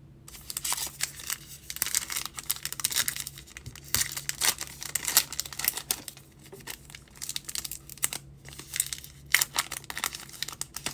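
A foil trading-card pack wrapper being torn open and crinkled by hand, with rapid irregular sharp crackles throughout.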